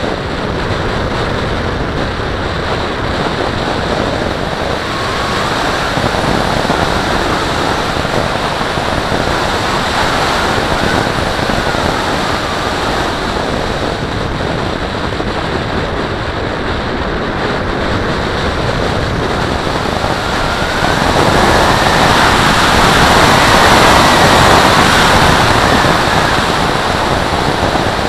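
Steady rush of air over an onboard camera mounted on the wing of a radio-controlled Valenta Salto H101 glider in flight. The rush swells louder about three quarters of the way through.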